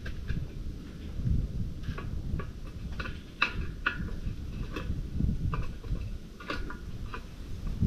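Wood fire burning in a homemade steel rocket stove, crackling with irregular sharp ticks over a low rumble.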